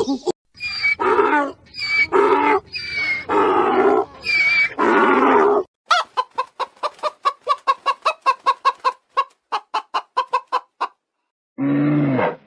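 Animal calls: about five loud, strident calls, then a fast run of short clucking calls, about four a second. A low, deep call begins near the end.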